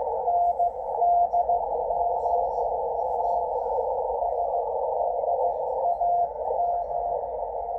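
Morse code from the W1AW ARRL bulletin on 80 meters, received on a Yaesu FTdx10 transceiver and heard through its speaker: a single keyed tone sounding dots and dashes over a narrow band of static hiss.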